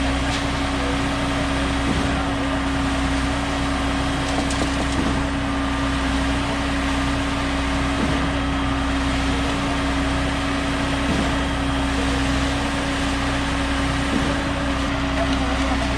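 Truck-mounted concrete pump running steadily, a constant engine hum with one steady tone.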